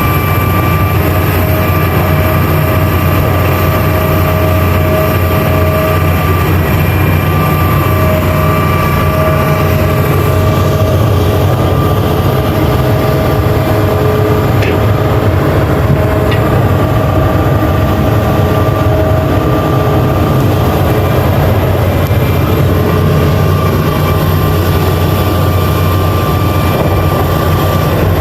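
Hitachi hydraulic excavator's diesel engine running steadily under working load. A high whine sits over the deep engine hum, dipping out and shifting slightly in pitch now and then.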